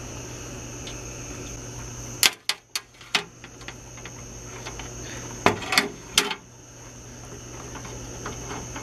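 Hands screwing the cap back onto the carburetor of a 49cc pocket bike engine, with the throttle cable fitted: small sharp clicks and taps of metal parts, in two brief clusters a few seconds apart, over a steady hum.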